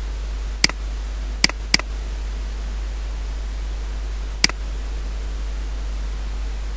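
Four sharp computer mouse clicks over a steady low electrical hum and faint hiss: a single click, a quick double-click about a second and a half in, and one more click about four and a half seconds in.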